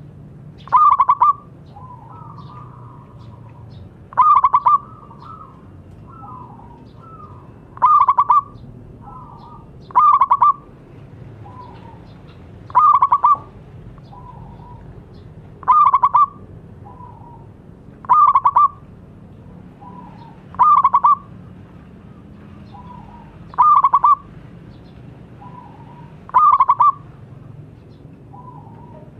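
Zebra dove (perkutut) cooing: about ten loud, short phrases of quick coos repeating every two and a half to three seconds, with softer coos in between.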